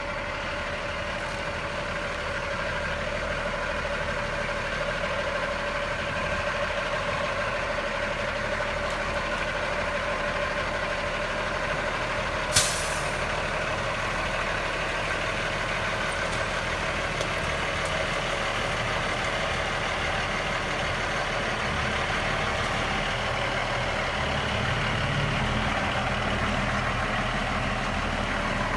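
Heavy truck running steadily, with one short, sharp hiss of air from its air brakes about halfway through.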